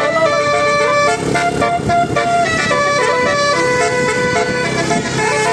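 Bus telolet horn playing a tune: several horn notes sound together, stepping to new pitches every fraction of a second.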